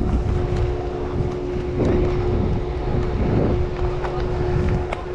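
Mountain bike rolling down a dirt trail, heard as wind buffeting the microphone over a low rumble from the tyres, with a steady hum throughout and two louder swells near the middle.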